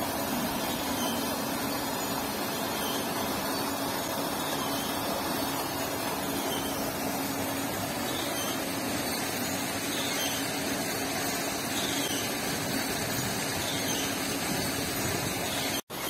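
Steady mechanical hum with a constant rushing hiss over it, unchanging throughout; the sound cuts out for an instant near the end.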